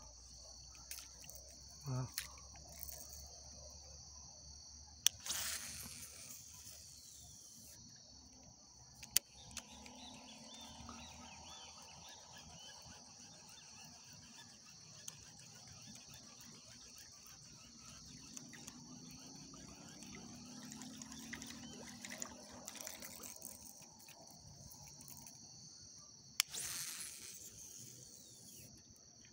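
Insects chirring in a steady, high-pitched drone, faint, with a few sharp clicks and two short rushes of noise, one about five seconds in and one near the end.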